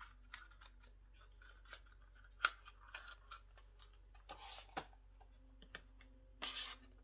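Small packs of spare drone propellers being handled and lifted out of a foam-lined hard case: scattered light clicks and taps, one sharper click about two and a half seconds in, and two short rustles of packaging near the middle and near the end.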